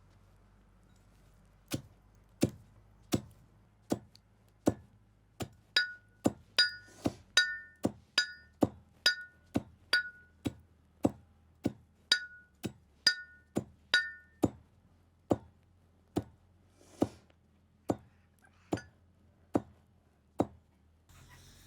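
Coffee beans being pounded in a mortar with a pestle: a steady run of sharp strikes, about three every two seconds, many of them ringing briefly with a clear clink.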